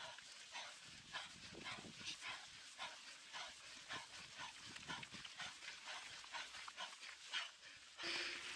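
A mountain biker panting hard after a climb: quick, rhythmic heavy breaths, about two to three a second. Near the end a louder rushing noise comes in.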